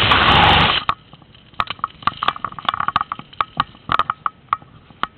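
A loud rustling scrape of fabric rubbing against the camera's microphone for just under a second, then a run of scattered short, sharp clicks.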